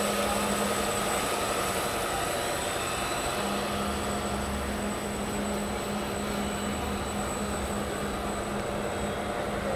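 Radio-controlled model jet boat running across the water, its drive motor giving a steady whine over a continuous rushing hiss.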